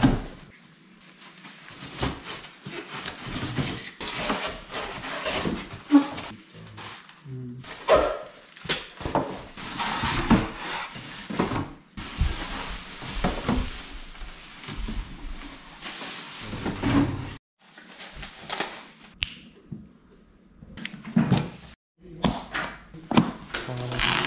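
A large cardboard appliance box being cut open and unpacked, with its plastic wrapping being peeled off: irregular scraping and rustling of cardboard and plastic, broken by occasional knocks.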